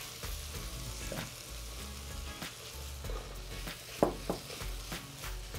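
Chicken, shiitake mushrooms and scallions sizzling in a frying pan as a spatula stirs them, with one sharper knock about four seconds in.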